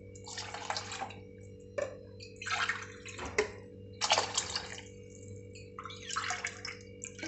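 Water poured from a steel tumbler into a pressure cooker of rice and coconut milk, in four short pours with pauses between, and a couple of short clicks of metal in the gaps.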